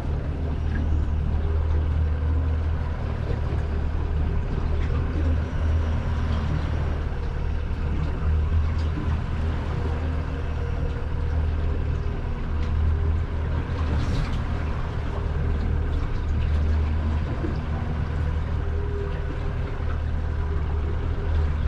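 A boat's engine running steadily underway: a continuous low drone.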